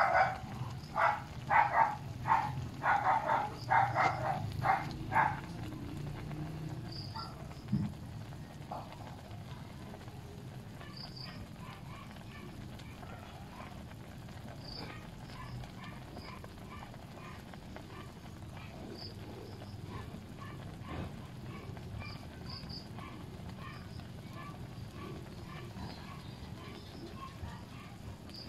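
A quick run of about ten loud, short animal calls, roughly two a second, for the first five seconds. Then a low outdoor background with faint high chirps every few seconds, over a wood cooking fire burning under a pot.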